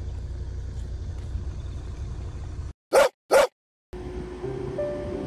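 Two short, loud dog barks about half a second apart, most likely from the golden retriever, set in silence. Before them a steady low rumble, like a car running, cuts off. After them background music begins.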